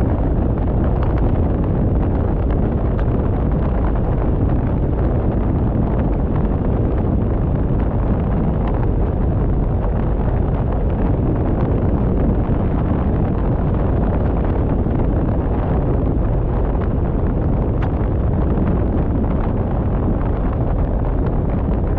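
Steady road and wind noise of a car driving at speed, with wind rumbling on the microphone.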